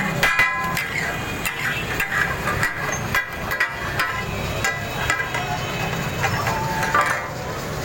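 Steel spatulas clanking against a flat iron griddle (tawa) in irregular, rapid strikes as taka tak is chopped and tossed, some strikes ringing briefly, over the background hubbub of voices.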